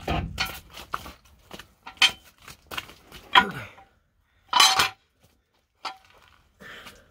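Heavy steel monster-truck wheel hub and brake rotor being worked off the axle spindle and set down: a dull thud at the start, then a series of metal clanks and knocks, the loudest a longer scraping clank about four and a half seconds in.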